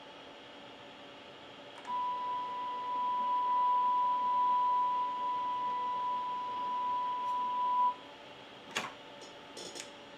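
Stepper motor of a geared Wade's extruder feeding filament: a steady, pure high whine for about six seconds that starts and stops abruptly. A few light clicks follow near the end as digital calipers are handled.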